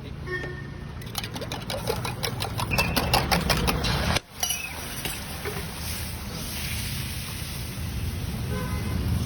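A rapid series of sharp clicks for about three seconds over a steady low background rumble.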